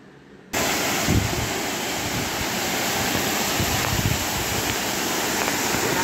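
Small waterfall pouring over rocks into a pool: a steady rush of falling water, cutting in suddenly about half a second in, with wind buffeting the microphone now and then.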